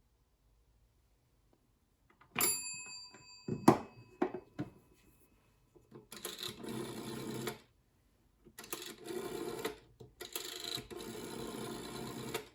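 A GPO 706 telephone: a single ringing ding from the bell about two seconds in, followed by a knock. Then the trigger-type rotary dial (dial auto number 21) whirrs back three times, each run lasting one to two seconds.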